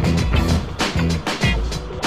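Background music with a steady beat, about two beats a second, over a repeating bass line.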